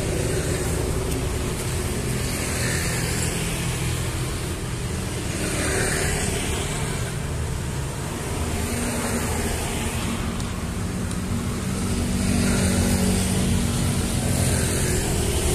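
Road traffic noise: vehicles passing by in swells every few seconds over a steady rumble, with an engine humming steadily in the second half.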